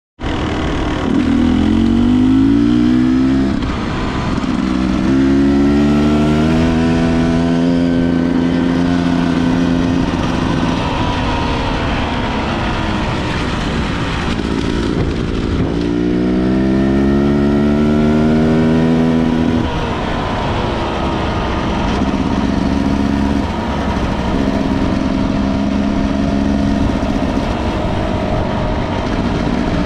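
A 250 cc enduro dirt bike's engine accelerating in repeated pulls, its pitch rising then dropping back and climbing again, then running at a steadier pitch over the last third.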